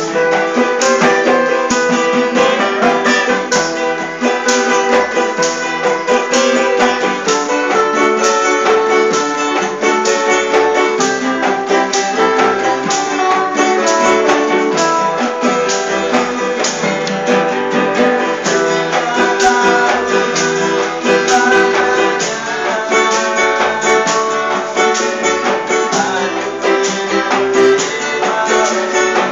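Band music led by guitar, played at a steady beat with strummed and plucked guitar parts.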